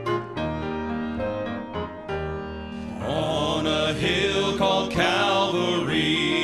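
Piano introduction, then a men's gospel quartet comes in about three seconds in, four voices singing in harmony over the piano.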